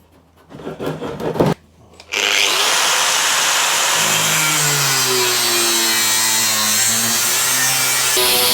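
An electric power tool starts about two seconds in and runs steadily while cutting out a new fuel tank base. Before it, a few brief handling knocks.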